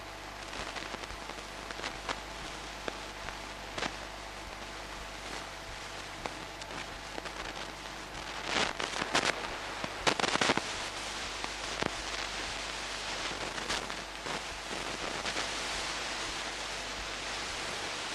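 Steady hiss with scattered crackles and pops over a low steady hum, with a cluster of louder crackles a little past halfway: the surface noise of an old film-to-video transfer.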